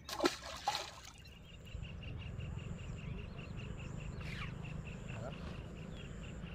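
A small fish thrown back splashing into the water, two quick splashes within the first second. After that a steady low rumble and a faint high chirping repeating about four times a second.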